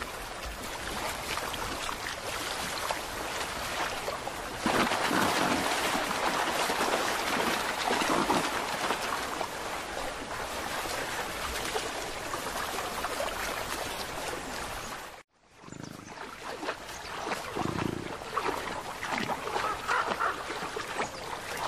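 Shallow river running over stones, a steady rushing of water that grows louder about five seconds in. It cuts out for a moment about fifteen seconds in and comes back more uneven, with small splashes.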